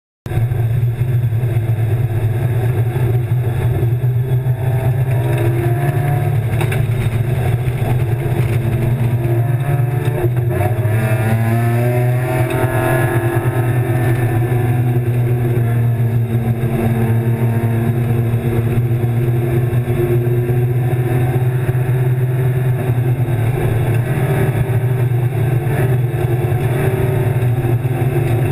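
BMW E36 325's M50 inline-six race engine running hard at speed, heard from inside the stripped cabin, its note climbing and falling with the throttle and gear changes over a steady low drone.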